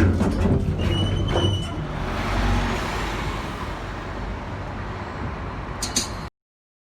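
Road traffic noise, a large vehicle such as a bus passing, with a brief high squeal about a second in. The sound cuts off abruptly near the end.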